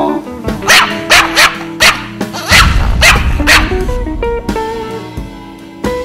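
A dog barking loudly and repeatedly, about seven barks in the first three and a half seconds, over background music. The music, with plucked guitar-like notes, carries on alone after the barking stops.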